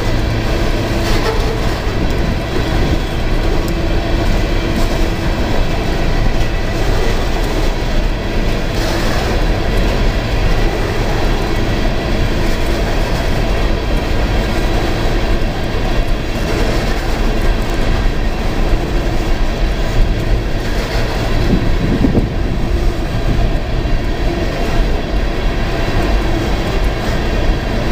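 Freight train of open-top coal cars rolling steadily past close by: the continuous running noise of steel wheels on rail, at an even, loud level throughout.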